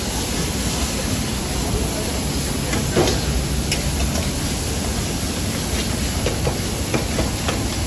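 Karahi cooking over a high gas flame: a steady roar of the burner with hissing, broken by a few sharp metal clinks of the cook's spatula against the pan. The loudest clink comes about three seconds in.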